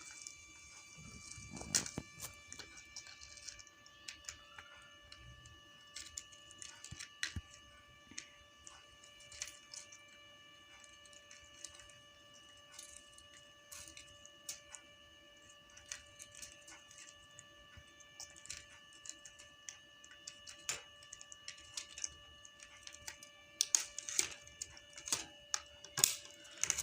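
Grey parrot eating peas and greens, its beak making soft, irregular clicks and small crunches that come thicker and louder near the end.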